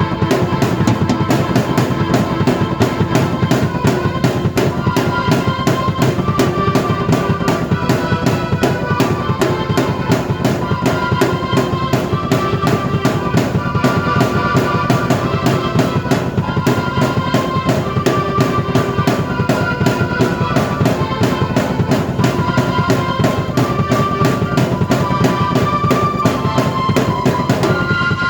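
Drum kit played at a steady, busy beat, bass drum and snare driving, together with a keyboard melody, both played at once by one performer.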